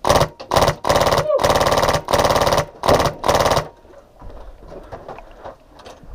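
HPA-powered airsoft MK46 with a Polarstar Fusion engine firing on full auto: about six bursts of rapid fire in the first three and a half seconds, then a quieter stretch with scattered faint clicks.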